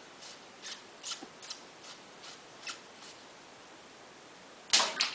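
Short scrubbing strokes, about two or three a second, as rubber milk-bucket lid gaskets are washed. Then a single loud knock near the end.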